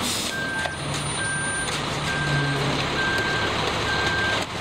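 Concrete mixer truck's backup alarm beeping about once a second over the steady running of the truck's engine and drum as it pours concrete down its chute.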